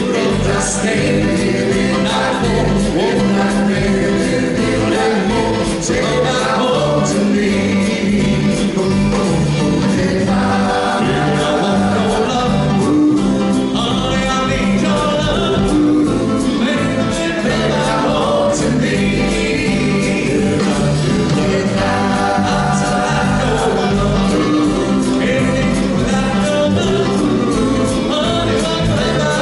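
Male doo-wop vocal group singing in harmony over a live backing band.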